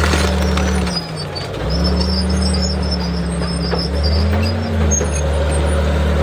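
Caterpillar D8 bulldozer's diesel engine running hard under load, its pitch sagging about a second in and recovering, then rising briefly again past the middle.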